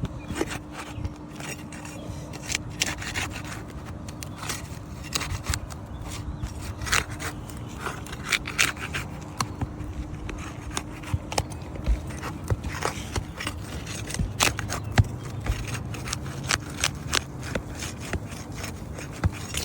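Irregular scraping and sharp clicks of a hand tool being worked under old three-tab asphalt shingles, loosening the shingle and prying out its nails.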